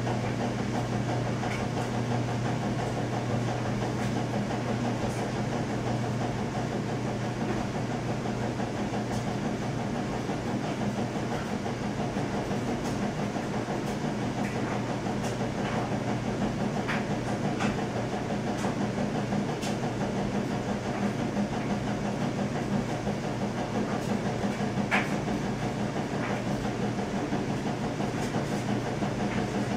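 Steady electrical hum over a constant hiss, with a few faint clicks scattered through.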